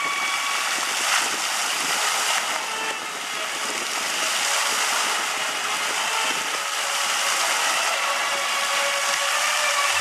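Jets of a musical fountain splashing back into the pool: a steady hiss of falling water.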